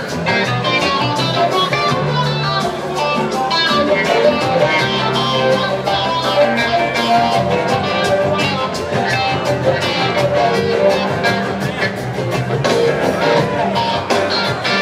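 Live blues-rock band playing, with a clavinet soloing in a run of quick, short notes over electric guitar and bass guitar.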